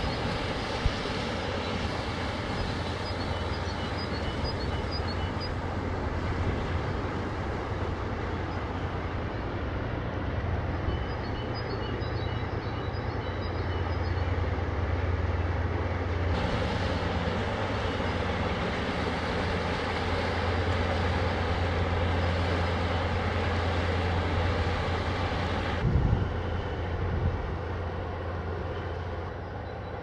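The low, steady drone of a 1972 inland cargo ship's 1014 hp Caterpillar diesel engine as the vessel sails past, over a broad rushing noise. The sound shifts abruptly about halfway and again near the end.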